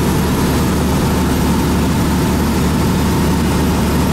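Semi-truck's diesel engine and road noise droning steadily inside the cab while cruising at highway speed.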